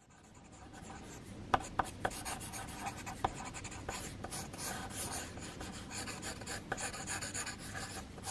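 Pencil sketching on paper: a continuous run of light, scratchy strokes, with a few sharper ticks standing out between about one and a half and three and a half seconds in.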